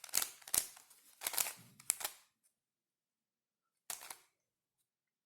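Plastic pieces of a Dayan Tangram Extreme 5-axis twisty puzzle clicking as its layers are turned. There is a quick run of sharp clicks over the first two seconds, then a pause, then one more click about four seconds in.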